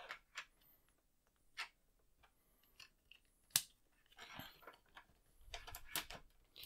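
Scattered small clicks and taps of hard plastic being handled: a 3D-printed bracket clipped around an HDMI cable and pushed into a tight-fitting hole in the Amiga 500's plastic case. The sharpest click comes about three and a half seconds in, with a brief rustle after it and a quick run of clicks near the end.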